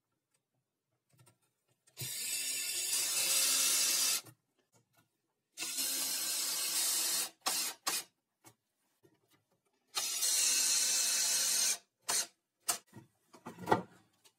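Cordless drill-driver running in three long runs of about two seconds each, driving screws into an old wooden pallet plank. Short blips of the drill between runs and a few sharp knocks near the end, the loudest just before it ends.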